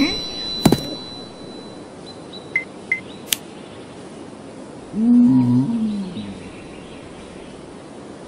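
A sharp click under a second in, a few small clicks a couple of seconds later, then a cartoon caveman's wordless grunt about five seconds in, lasting about a second, its pitch rising and then falling.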